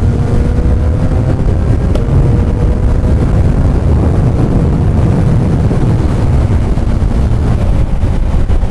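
Kawasaki Ninja 1000 SX inline-four engine running steadily under way through an aftermarket Black Widow bend-pipe exhaust, with wind noise on the microphone. There is a short click about two seconds in.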